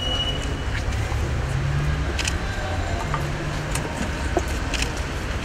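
Low, steady rumble of a motor vehicle running with street traffic, a brief engine hum rising out of it twice, and a few light clicks.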